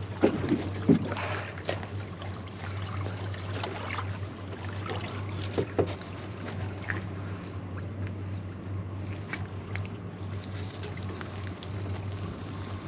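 Small boat's ambient sound: water and wind noise with a steady low hum, and a few short knocks and clicks, mostly in the first second.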